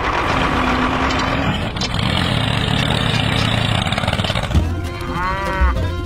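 Cow mooing, a dubbed sound effect, over a steady dense noise.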